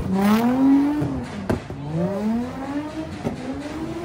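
A car engine revving hard in repeated surges, its pitch climbing and dropping every second or two as the car does donuts with its rear wheels spinning. A few short sharp cracks come through over the revving.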